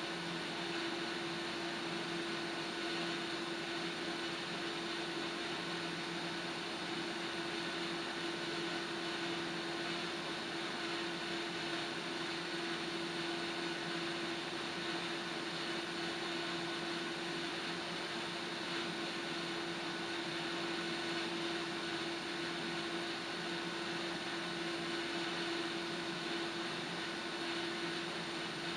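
Water heating on a gas stove burner: a steady rushing hiss with a steady low hum.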